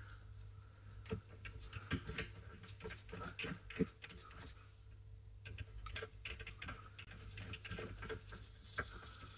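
Faint, irregular light clicks and taps of a hand tool working on a brake caliper, with a short pause about halfway through.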